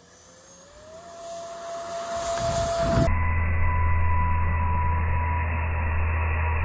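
Electric ducted fan of an E-flite F-35 RC jet, its brushless motor whining. The pitch rises over the first second, then holds steady and grows louder as the jet rolls for takeoff. About three seconds in the sound switches to a closer, steady, higher whine over a low rumble.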